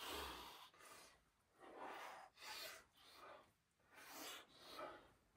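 Faint, short puffs of heavy breathing, about six of them, irregularly spaced: a man straining as he hangs by his hands from the top log of a cabin wall.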